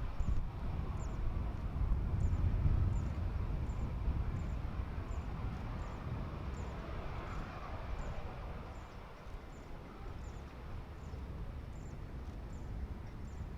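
Low rumble of an Airbus A320-214's jet engines at low power, loudest early on and then slowly fading, with a faint high chirp repeating about once or twice a second.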